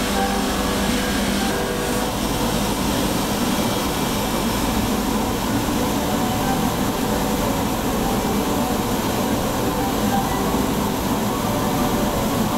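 Bench polishing lathe running steadily while a silver part is buffed against its spinning wheel: an even motor drone.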